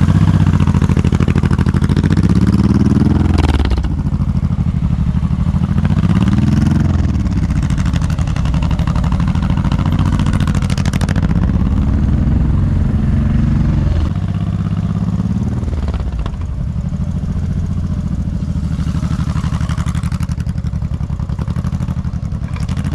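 Motorcycle engine idling close by, a steady low throb. Over it, another motorcycle's engine pitch rises and falls about four times as it works through a slow, tight cone course.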